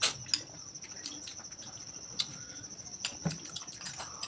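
Metal spoons clicking against ceramic plates and bowls while eating, the sharpest two clicks at the very start, with more scattered through. Under them runs a steady high-pitched pulsing trill.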